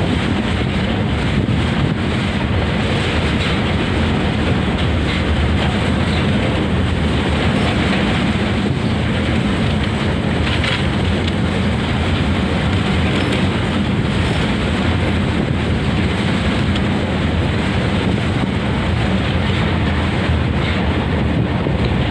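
A moving train running steadily: a continuous low rumble of wheels and carriages on the track, with a few faint ticks.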